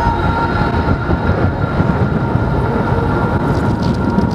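Car driving at speed: steady engine and road rumble, with a thin steady whine over it.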